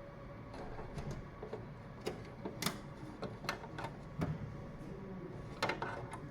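Irregular clicks and light knocks of computer hardware being handled and fitted into a desktop computer while its components are connected, with a few sharper clicks among them.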